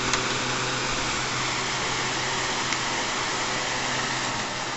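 Steady background noise: a constant hiss with a low, even hum underneath, and two faint clicks, one near the start and one about halfway through.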